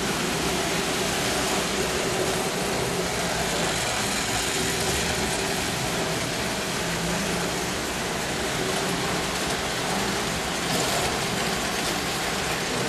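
Tinplate toy electric trains running on metal track: a steady rumble and whir of motors and wheels.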